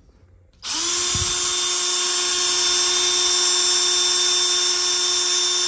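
A cordless drill starts about half a second in and runs with a steady whine. It is turning a freshly rebuilt diesel engine's oil pump to prime the oil system and build oil pressure.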